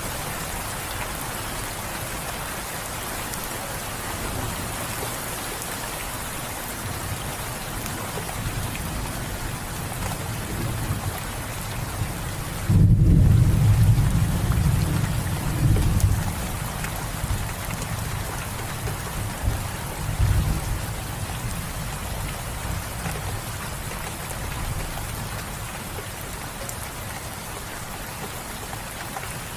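Steady rain falling, with a deep rumble of thunder breaking in suddenly about halfway through, swelling twice more and then fading back under the rain.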